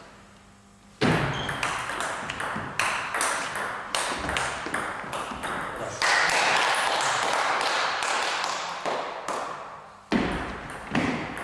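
Table tennis rally: a run of sharp, echoing clicks as the celluloid ball is struck by the bats and bounces on the table, starting about a second in. From about six seconds in, a louder, steady rushing noise lies underneath the clicks.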